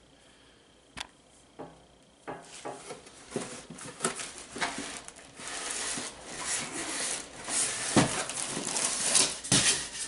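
Cardboard shipping box and foam packing being handled: two light clicks, then from about two seconds in a busy run of rustling, scraping and knocks that grows louder near the end.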